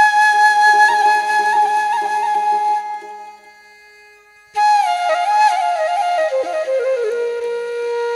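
Background music: a flute plays long held notes, then a slow falling melody. The music breaks off for about a second and a half in the middle.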